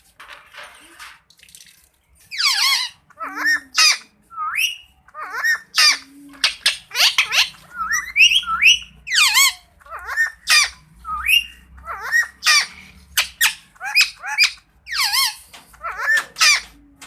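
Indian ringneck parrot giving a long run of loud, harsh squawks and chattering calls that sweep up and down in pitch. The calls start about two seconds in.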